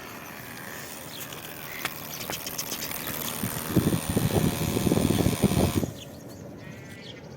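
Small DC motor of a homemade cardboard RC car running with a dense, fast rattle for about two seconds, then cutting off suddenly.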